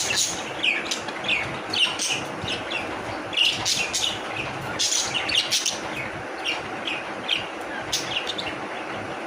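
Pet budgies chattering with many quick, high chirps and tweets, some overlapping, over a steady background noise.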